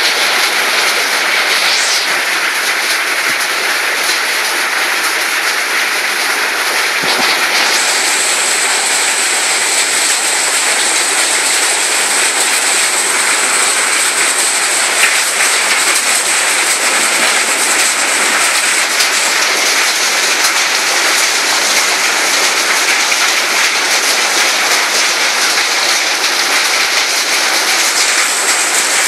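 Heavy rain falling steadily on roofs and paving: a loud, even hiss.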